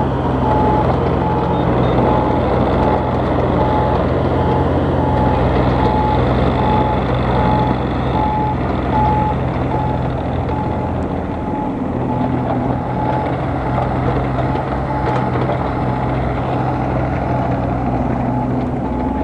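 Bobcat E32 mini excavator running, its diesel engine holding a steady hum while the travel alarm beeps about twice a second. The beeps are louder for the first half and fainter later on.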